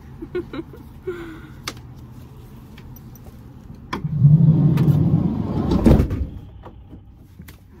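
A few light clicks and knocks, then a van's sliding door rolling along its track for about two seconds and shutting with a loud thud.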